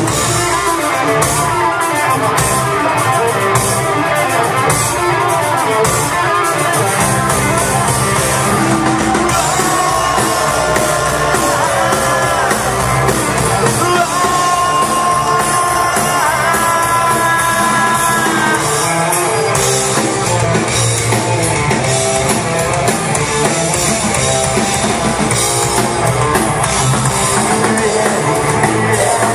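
Instrumental break of a rock song: guitars and drum kit playing. In the middle, a lead melody of held notes bends up and down.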